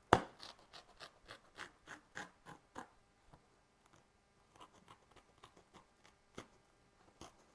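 Razor blade slicing through foam-backed headliner fabric: a sharp click at the start, then a run of short scratchy crackles, about three a second, that thin out after about three seconds.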